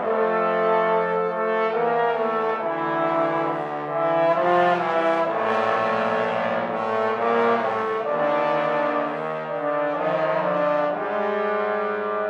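Trombone quartet playing, four trombones sounding held chords together in harmony, the chord changing every second or so.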